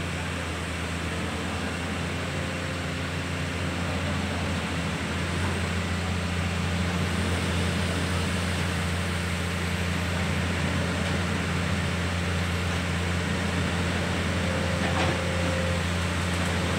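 Komatsu PC210 LC excavator's diesel engine running steadily under load as the machine crawls down off a flatbed trailer on its tracks, getting a little louder a few seconds in.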